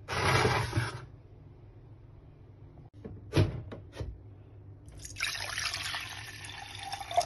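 Water poured from a mug into a non-stick saucepan, splashing for about two seconds in the second half and ending with a sharp knock. Earlier there is a short rush of noise in the first second and a few sharp knocks around the middle.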